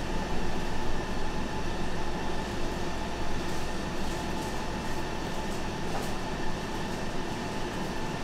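A machine running steadily, a continuous low hum under an even rushing whir.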